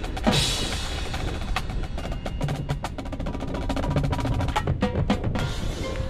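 Marching band percussion section playing a passage of snare and bass drum hits and rolls, with loud crashes about a third of a second in and again near the end.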